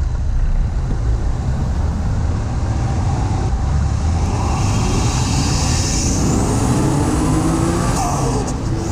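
Toyota Chaser's 1JZ-GTE turbocharged straight-six, heard from inside the cabin, running at low revs and then pulling up through the revs under acceleration, with a rising turbo whistle about halfway through.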